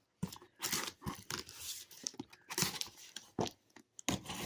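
Cardboard shipping box being handled and opened, with irregular tearing and crinkling rasps.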